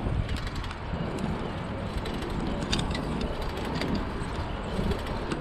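Bicycle ride heard through a chest-mounted GoPro HERO7: steady wind and road rumble on the microphone, with scattered light clicks and rattles from the moving bike.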